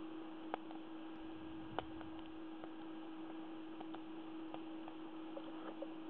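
Faint, scattered clicks of a hook pick lifting the pins inside a Lince 50 mm brass padlock, with a sharper click about half a second in and another near two seconds. A steady electrical hum and hiss run underneath.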